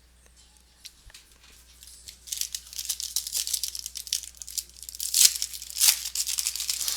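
Baseball card pack wrapper being torn open and crinkled, starting about two seconds in, with a couple of sharper rips near the end.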